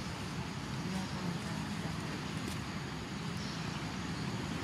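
A steady low outdoor rumble, like wind on the microphone or distant traffic, with no clear sound from the monkeys.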